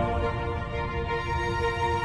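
Soundtrack music of long held notes over a deep low layer.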